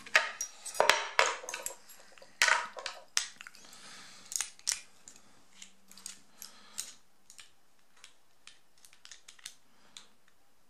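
Metal clicks and clinks of a padlock and small hand tools being handled, louder and close together in the first half, then sparser, fainter ticks.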